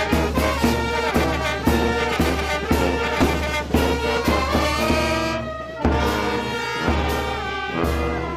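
Village brass band playing a tune, with sousaphone bass notes on a steady beat of about two a second under trumpets and other brass. The music thins briefly a little past halfway, then carries on.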